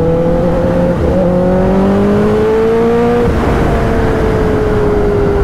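Liter-class sport motorcycle's engine running under way, with wind noise: the revs climb gently for about three seconds, then drop suddenly and wind slowly down.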